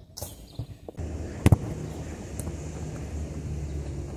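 A football struck hard, one sharp double thud about a second and a half in, over a steady low rumble that sets in about a second in.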